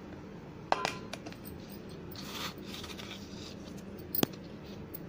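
Gram flour being tipped into a bowl: a soft pouring hiss, with a short knock of the bowl near the start and one sharp tap about four seconds in.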